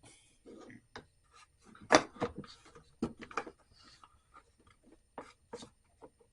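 Hard plastic and metal lock parts of a Shad SH37 top box being handled and pushed into place: an irregular string of small clicks, knocks and rubs, the loudest about two seconds in.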